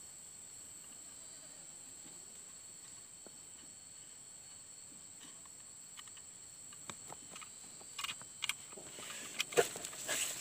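Steady high-pitched insect drone, like crickets, with a few sharp clicks and rustling in the last few seconds as the seedling stem is handled and cut with a utility knife; the loudest click comes shortly before the end.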